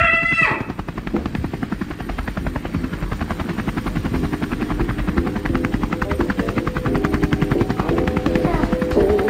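Helicopter rotor blades chopping in a fast, even beat, slowly getting louder.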